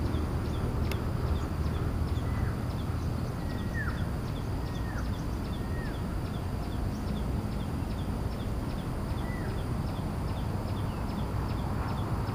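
Birds calling: short high chirps repeating about twice a second, with several downward-sliding whistles between them, over a steady low rumble. One sharp click about a second in.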